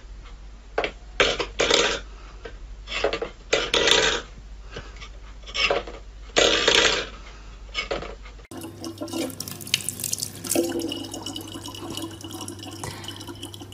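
Stainless steel bowl clattering and scraping on a wooden floor as a cat paws at it, in several short bursts. About eight seconds in, a thin stream of water starts running steadily from a dispenser tap into a plastic bottle.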